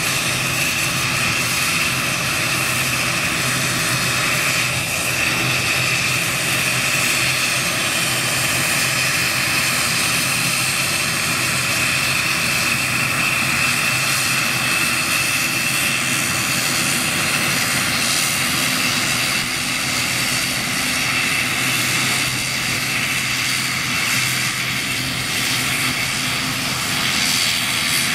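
ATR 72-600 twin-turboprop airliner taxiing, its engines and propellers running with a steady high whine over a broad propeller drone.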